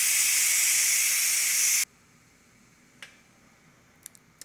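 Ninja Foodi pressure cooker's release valve venting steam in a steady hiss: the remaining pressure being released by hand. The hiss cuts off suddenly about two seconds in as the pressure is spent, followed by a few faint clicks.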